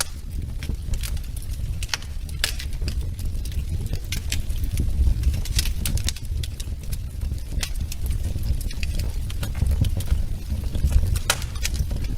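Wood fire in a fireplace crackling, with irregular sharp pops and snaps over a steady low rumble of the burning logs.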